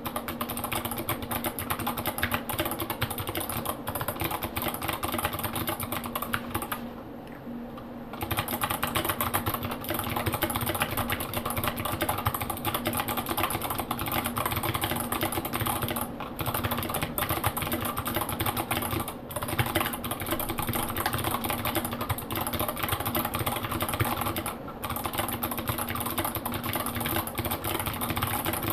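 Continuous typing on a Tofu WKL mechanical keyboard with clicky Kailh Box White switches and SA keycaps: a dense stream of sharp keystroke clicks, with a short pause about seven seconds in.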